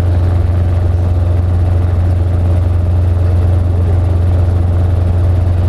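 A small aircraft's engine and propeller running steadily in flight, picked up by an onboard camera as a loud, even drone with a deep hum.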